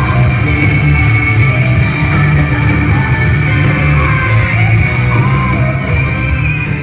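Rock song with singing, starting to fade out near the end.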